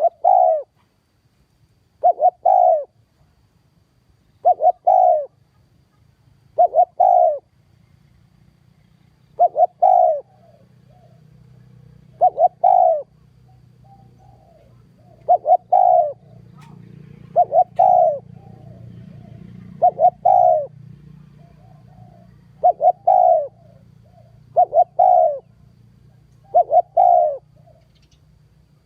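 Spotted dove cooing: a short phrase of two or three quick coos repeated about every two seconds, a dozen times over.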